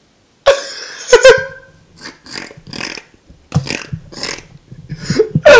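A person's loud wordless vocal outbursts: yells or yelps with gliding pitch, broken by short breathy gasps, about a dozen in a row.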